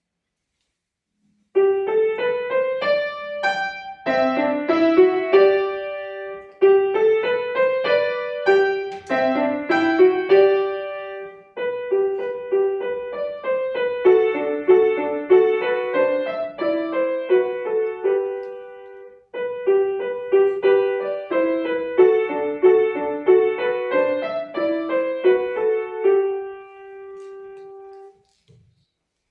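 Piano playing a simple melody in phrases, starting about a second and a half in, with a couple of brief breaks between phrases, and ending on a held note that dies away near the end.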